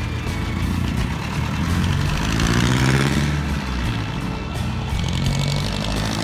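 A motor vehicle's engine running steadily, with music playing over it.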